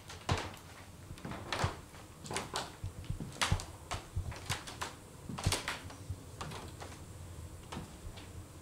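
Slow footsteps through a room, with irregular sharp clicks and knocks, a dozen or so spread across several seconds.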